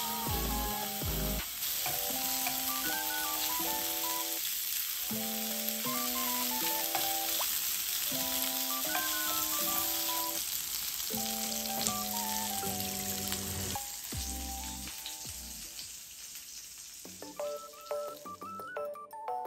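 Pork-belly-wrapped leeks sizzling in a hot frying pan, a steady crackling hiss, with a light tune of clear notes playing over it. The sizzle fades out near the end, leaving only the music.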